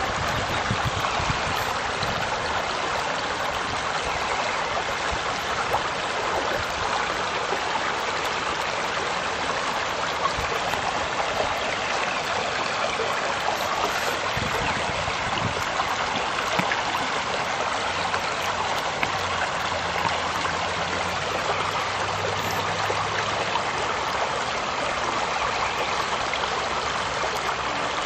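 Shallow creek running over a rocky bed: a steady, unbroken rush and babble of water.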